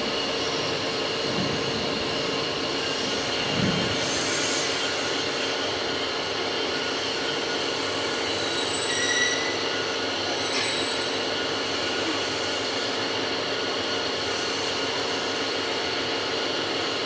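Crane truck hydraulic pump running under load with a steady whine, a short hiss about four seconds in and a few brief high squeaks near the middle.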